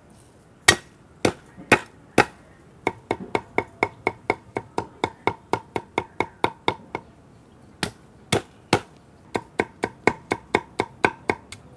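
Cleaver chopping garlic on a wooden chopping board: a few heavy separate blows, then quick even chopping at about four strokes a second. Near the middle it stops briefly, then a few more heavy blows lead into quick chopping again.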